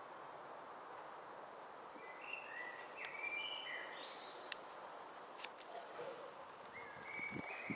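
Small birds calling with short, repeated chirps over a steady background hum, starting about two seconds in, with a few sharp clicks near the middle.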